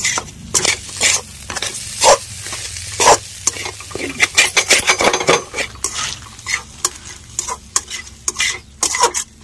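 A spoon stirring and scraping a frying vegetable-and-potato mixture around a kadhai to mix in the spices. There are irregular scrapes and clinks against the pan, several a second, over a steady sizzle.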